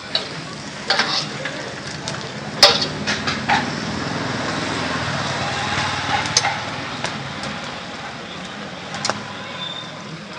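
Busy street ambience: a steady background noise of traffic and activity, broken by scattered sharp clicks and knocks, the loudest a little under three seconds in.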